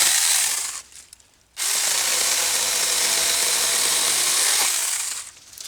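Saker mini cordless electric chainsaw running in two bursts as it cuts small growth off an old stump: a short one at the start, then a longer steady run of about three and a half seconds beginning under two seconds in.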